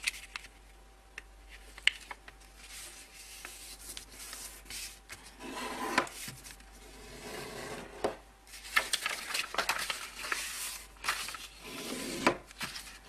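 A sheet of paper being folded and creased by hand on a wooden tabletop: rustling and rubbing with light taps, in louder stretches about halfway through and again toward the end.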